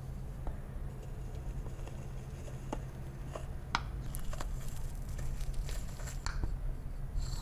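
Steel knife cutting down through a cocoa-dusted tiramisu of mascarpone cream and soaked ladyfingers: soft squishes with scattered light clicks of the blade, over a low steady hum.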